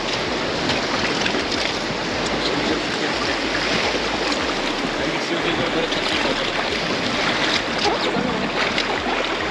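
Whitewater river rushing steadily around a raft, with occasional sharper splashes.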